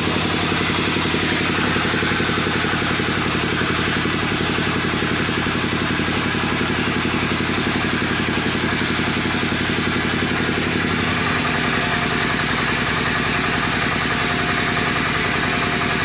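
Engine of a wood-cutting saw running steadily, its note shifting slightly about eleven seconds in.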